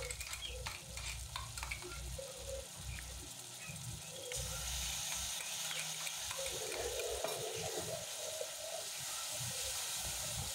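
Onion-tomato masala frying in mustard oil in an aluminium kadhai, with a few light knocks in the first seconds as ginger-garlic paste goes in, then a soft sizzle that grows louder about four seconds in. A metal spatula stirs and scrapes the pan near the end.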